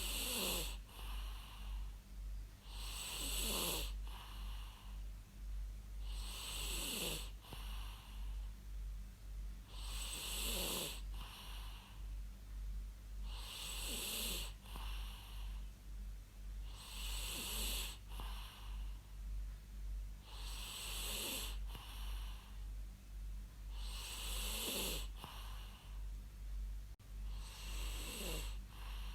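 A person snoring in a steady rhythm, about one snore every three and a half seconds, each snore dropping in pitch, over a steady low hum.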